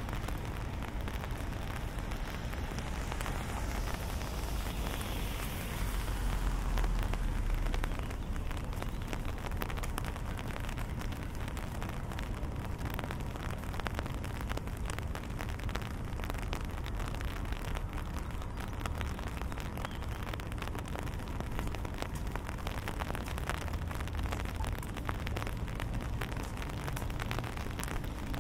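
Rain pattering steadily on an umbrella overhead, heard close up as a dense hiss of tiny drop ticks. About six seconds in, a louder swell of hiss and low rumble rises and fades.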